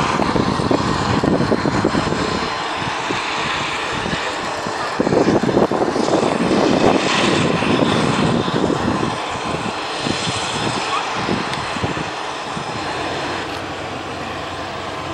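Aircraft engine running, swelling louder about five seconds in and then fading toward the end.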